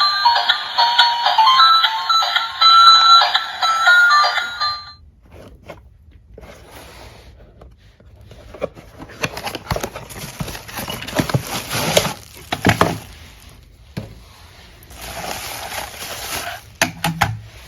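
A short bright musical jingle for about five seconds, then rustling with scattered sharp clicks and taps, the sound of a toy and its packaging being handled.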